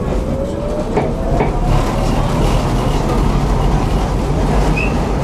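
Tram running and picking up speed, its electric traction motor giving a rising whine over the first second and a half. A steady rumble of wheels on rails builds through it, with two sharp knocks from the wheels and track about a second in.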